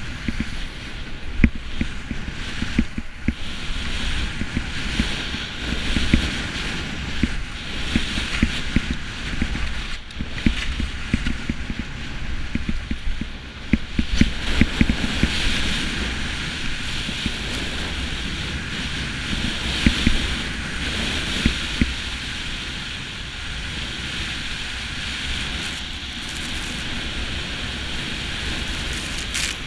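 Wind buffeting the microphone of a camera carried by a skier going fast down a groomed slope, with the steady hiss and scrape of skis sliding on firm snow. There are frequent short bumps in the first half, and the noise settles to a smoother rush in the last third.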